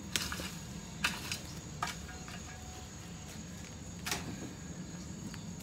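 A handful of sharp knocks and scuffs from a pitchfork and boots working the wood-chip compost of a chicken run, the loudest about four seconds in, over a steady low background hum.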